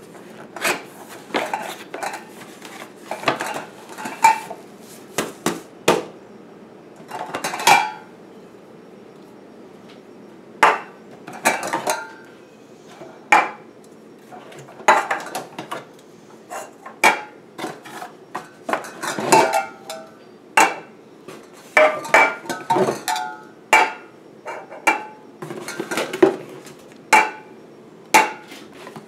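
Metal target cans from a can-toss game clanking and clinking as they are taken out of a cardboard box, set down on a table and stacked into a pyramid, with the box and its packaging handled in between. Dozens of short knocks, many with a brief metallic ring.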